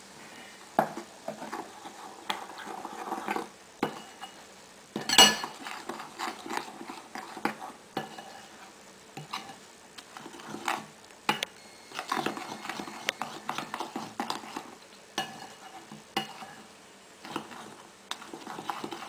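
Besan batter being stirred in a bowl, the mixing utensil scraping and clicking irregularly against the bowl, with one louder knock about five seconds in.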